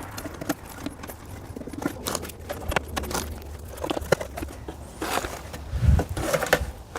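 Nylon push-in panel fasteners being handled and pushed through holes in a plastic vent panel: scattered light plastic clicks and scraping, with a duller thump about six seconds in.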